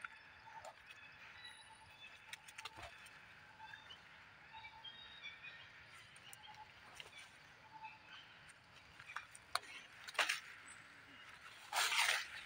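Forest background of faint bird and insect chirps, with scattered light clicks and a short, louder rustle near the end.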